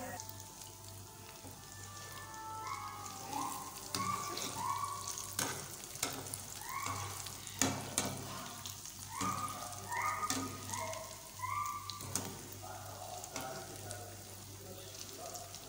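Moong dal fritters (mangochiyan) deep-frying in hot oil, a steady sizzle, with a few sharp clicks from the metal spider skimmer turning them in the pan. Short, high whistled notes come and go through the middle of the clip.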